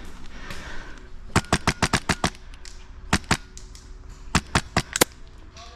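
Wolverine MTW Gen III HPA airsoft rifle firing: a fast string of about nine sharp shots a little over a second in, a quick pair at about three seconds, and four more shots a second later.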